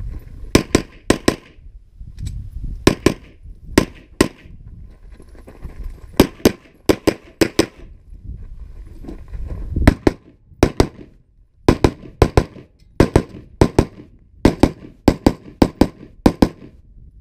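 Gunshots from one shooter working through a practical shooting stage, about thirty in all. They come mostly as quick pairs and short strings, with brief pauses between groups of targets.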